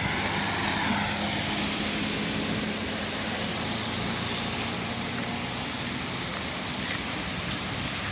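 A vehicle running on a flooded road: a steady engine hum over the hiss of tyres through water.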